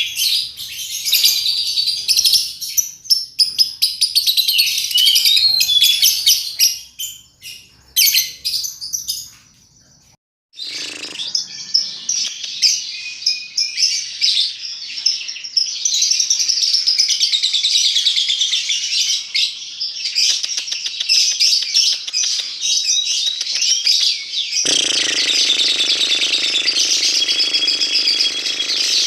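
Lovebird singing a long, fast chattering song of high chirps and trills, breaking off briefly about a third of the way in and then running on. A low hum joins in near the end.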